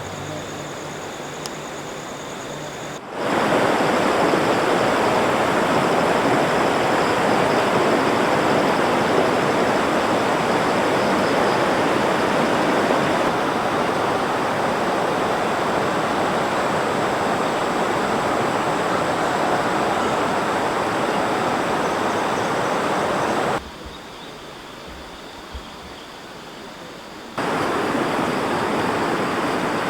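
Rushing river water: a steady, loud rush of flowing water that cuts in suddenly about three seconds in. It drops to a quieter background for about four seconds near the end, then cuts back in.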